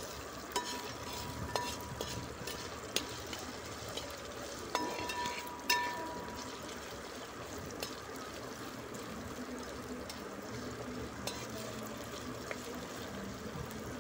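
Crushed ginger, coconut slices and peppercorns sizzling in hot coconut oil, with a steady frying hiss. A perforated metal ladle stirs them, clinking against the pot about six times, several clinks leaving a short ring.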